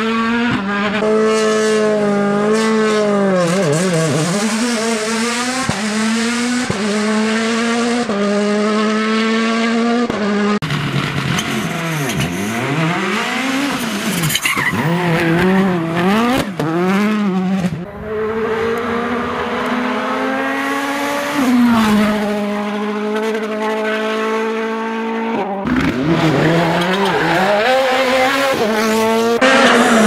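2017 World Rally Cars (Ford Fiesta, Citroën C3 and Toyota Yaris WRC), one after another, driven hard through tight bends. Their 1.6-litre turbocharged four-cylinder engines rev up and down with quick gear changes and lifts on corner entry, with some tyre squeal.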